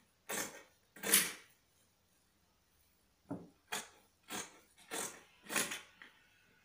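Scissors snipping through folded layers of cloth, about seven cuts: two near the start, then after a short pause a run of five, a little over half a second apart.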